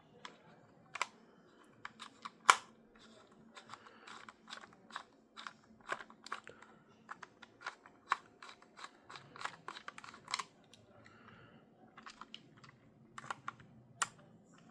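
Small screwdriver clicking and scraping on the tiny screws and plastic shell of a Nintendo Switch Pro Controller as they are worked loose: irregular light clicks, with one sharp louder click about two and a half seconds in.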